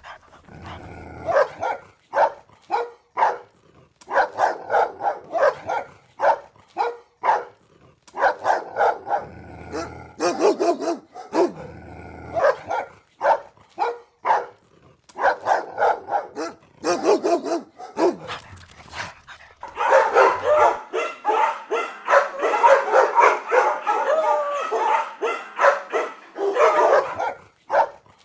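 Dogs barking over and over in short volleys with brief gaps. Later, a run of rapid, overlapping barking goes on for several seconds before it breaks off.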